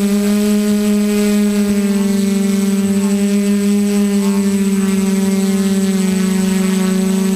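QAV 500 quadcopter's brushless motors and propellers running in flight: a loud, even drone with one strong low tone and its overtones, the pitch drifting slightly.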